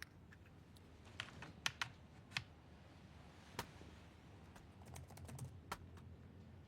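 Soft, irregular clicks and taps, a handful spread over several seconds, with a low hum of room tone beneath.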